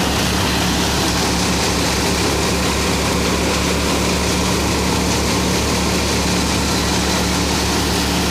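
A Farmtrac tractor's engine powering a stationary grain thresher, both running steadily while straw is fed in. It is a loud, unchanging low drone under a constant rushing noise from the threshing drum and the flow of straw and grain.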